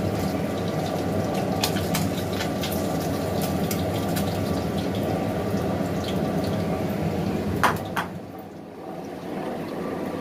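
Metal spatula clicking and scraping against a wok and a ceramic bowl as fried fish are lifted out, over a steady low whirring. The whirring drops away about eight seconds in.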